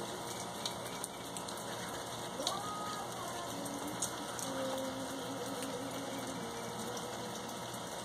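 Steady patter of water drops, like light rain: snow melting in the sun and dripping from the branches onto the snow and ground.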